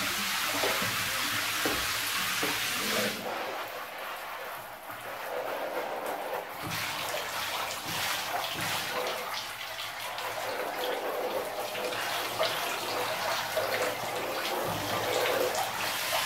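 Water from a shower running and splashing into a filled bathtub, a steady hiss. About three seconds in it turns duller for a few seconds, then brightens again.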